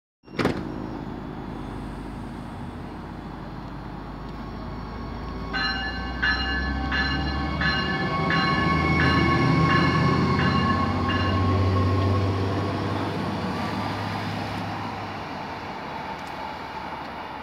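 Diesel light rail train (Stadler GTW railcar) pulling away from the platform, its engine rumbling louder as it accelerates and then fading as it moves off. Midway through, a warning bell rings about nine times at an even pace. There is a sharp click at the very start.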